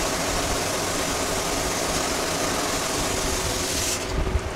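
Tomatoes and scrambled egg sizzling steadily in a wok as they are stir-fried. The high hiss drops away suddenly near the end.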